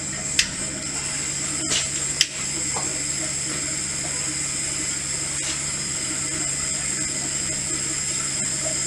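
A homemade burner running on gasoline-vapour gas is lit with a few sharp clicks in the first couple of seconds, then burns with a steady hiss over a steady low hum.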